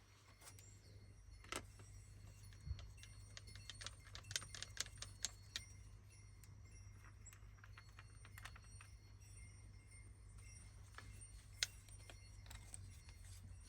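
Scattered light clicks and clinks of small hard objects, with a quick cluster of them about four to five seconds in, over a low steady hum.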